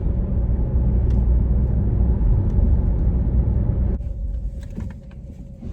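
Car moving, heard from inside the cabin as a steady low road and engine rumble. It drops off suddenly about four seconds in.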